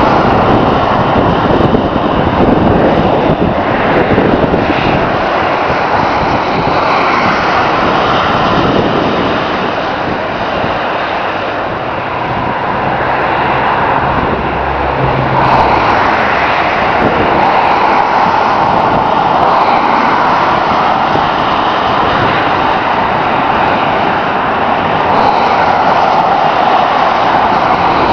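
Road traffic on a four-lane highway: a steady rush of tyre and engine noise from passing cars that swells and eases as vehicles go by, with a low engine hum about twelve to fifteen seconds in.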